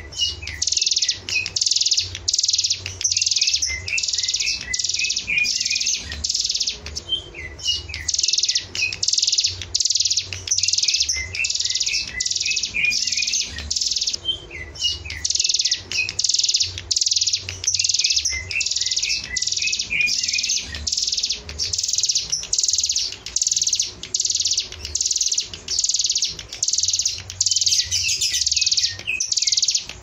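Caged hill prinia (ciblek gunung) singing: a long run of short, harsh, buzzy notes, about three every two seconds, with quick high chirps mixed in between them.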